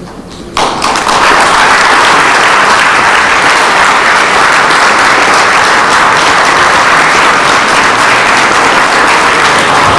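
Audience applauding, starting suddenly about half a second in and continuing steadily.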